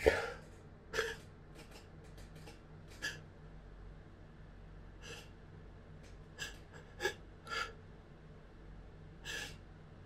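A person sniffing and catching their breath between sneezes: about eight short, quiet sniffs and breaths spaced a second or two apart, the first the loudest.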